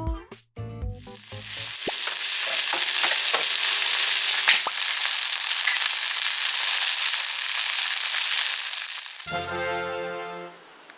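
Kimchi pancake batter sizzling in hot oil in a frying pan, a steady, loud sizzle. Near the end the sizzle fades as light ukulele background music comes in.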